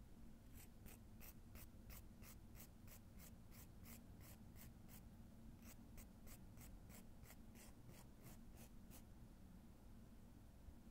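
A nail file scraping back and forth across the free edge of a natural fingernail to shape it, at about three strokes a second. The strokes pause briefly about five seconds in and stop about nine seconds in.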